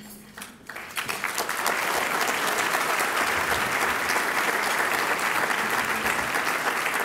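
Banquet audience applauding: many hands clapping, which builds up about a second in and then holds steady.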